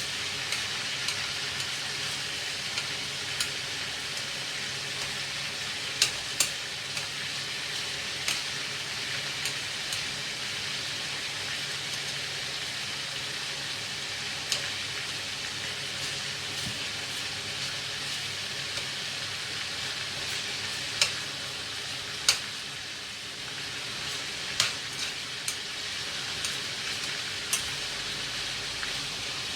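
Pieces of duck frying in hot oil: a steady sizzle, with a sharp pop or crackle every few seconds.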